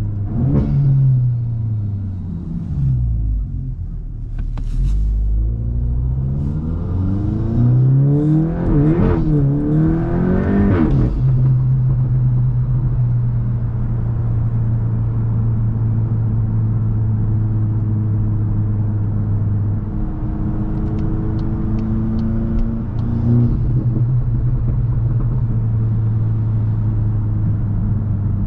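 Tuned VW Mk8 GTI's turbocharged 2.0-litre four-cylinder heard through its iE catback exhaust. The revs fall over the first few seconds with a couple of sharp pops, then climb hard for several seconds under acceleration, then settle into a steady cruise.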